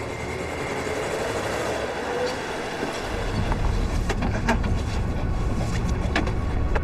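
Car engine running as the car drives, with a low rumble that grows heavier about three seconds in and a few sharp clicks.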